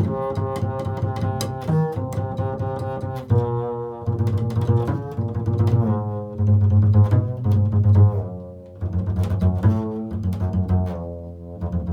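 Improvised solo on a low bowed string instrument: sustained notes that move to a new pitch every second or so, with a strong deep tone underneath.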